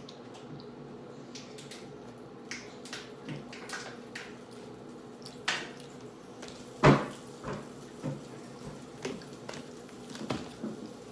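Scattered light clicks and knocks of handling, with one louder thump about seven seconds in, over a faint steady hum.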